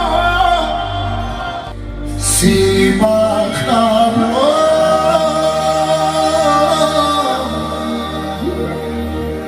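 Live manele music: a male singer, amplified through a PA, sings long, wavering held notes over keyboard and a sustained bass. The music drops back briefly about two seconds in, then the voice comes back in.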